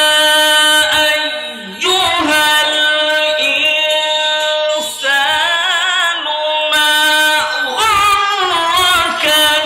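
A man reciting the Quran in the melodic tilawat style into a microphone. He holds long notes with wavering ornaments, broken by short pauses for breath about two and five seconds in.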